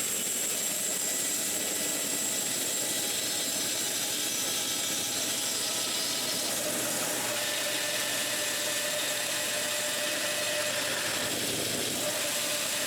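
Power saw running steadily with an even whine while cutting a basswood log in half along its crack.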